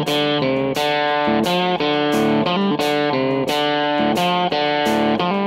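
Background music led by a guitar playing a melody of picked notes, each note starting with a sharp attack.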